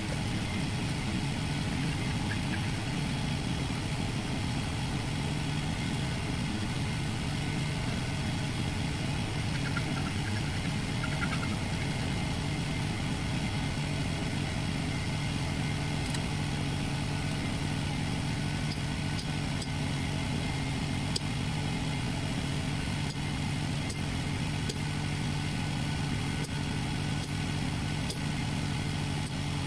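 A machine running steadily, a low, even drone with a few faint clicks over it.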